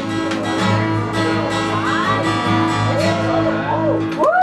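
Music with a strummed acoustic guitar in a country style. Just before the end a tone slides upward and holds.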